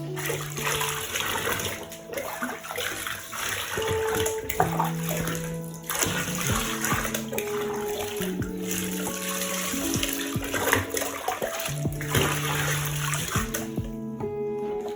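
Water running into a bathtub, with a few brief breaks, and shutting off near the end, over background music with slow sustained notes.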